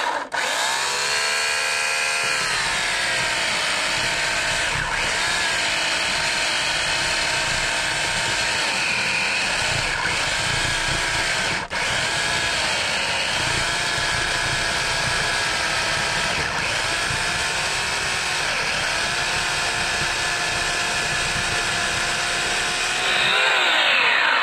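Portland 14-inch, 9-amp corded electric chainsaw cutting through a log. Its motor whine drops in pitch each time the chain bites into the wood and rises again as the load eases. There is a brief break about halfway.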